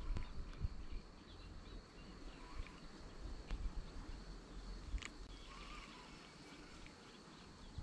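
Faint outdoor ambience at the water's edge: quiet, steady background with a thin high insect-like tone, a few faint bird chirps in the middle and a couple of light clicks.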